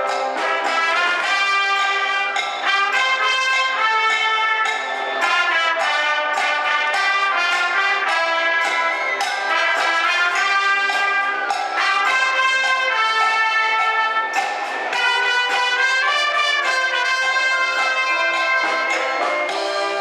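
Wind band playing live, with trumpets, saxophones and clarinets carrying a loud, continuous melody together.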